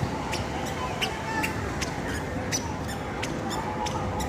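Busy outdoor ambience: a steady murmur of distant voices, with many short, sharp clicks or chirps scattered irregularly through it.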